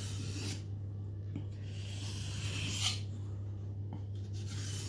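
Mora Bushcraft Black knife blade being drawn across a wet whetstone in slow, even honing strokes, each a long hissing scrape, three in all. This is the fine final honing of the scandi edge.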